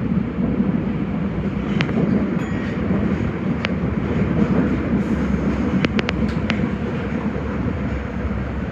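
Nagoya Municipal Subway 5050 series train running on the Higashiyama Line: a steady rumble of wheels on rail, with scattered sharp clicks.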